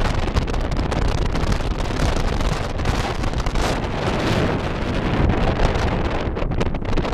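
Loud wind buffeting the microphone, over a steady low rumble of a moving vehicle's road and engine noise.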